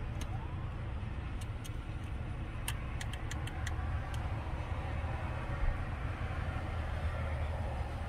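Steady low rumble of an idling diesel truck engine, with a quick run of light clicks about three seconds in.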